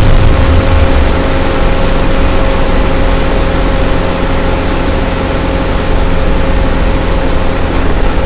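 Sci-fi energy-beam blast sound effect: a low boom that drops in pitch over the first half second, then a loud, steady, dense noise with a held hum underneath.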